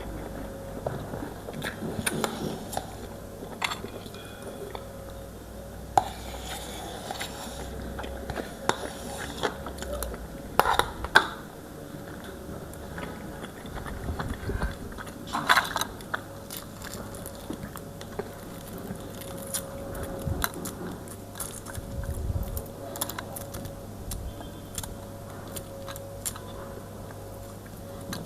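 Close-miked chewing, biting and lip-smacking of a person eating eggs, with scattered short clicks and taps over a faint steady hum.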